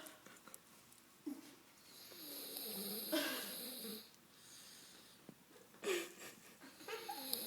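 A sleeper snoring: one long rasping breath about two seconds in that cuts off sharply, then a shorter one about two seconds later.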